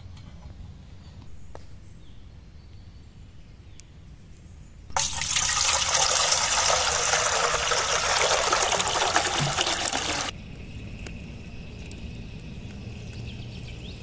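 Water poured in a steady stream into a large metal pot, starting suddenly about five seconds in and stopping abruptly about five seconds later.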